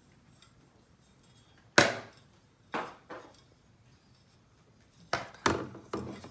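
Several sharp knocks and clinks of hard objects: one loud knock about two seconds in, two lighter ones a second later, and a quick run of three or four near the end.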